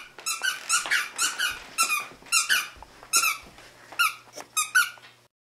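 A Siberian husky chewing a squeaky plush toy, setting off a rapid run of short, high squeaks, about three a second.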